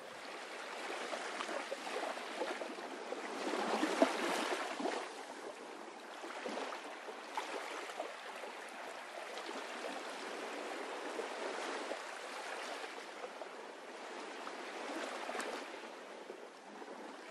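Soft, steady rushing noise, swelling about four seconds in, with faint crackles through it.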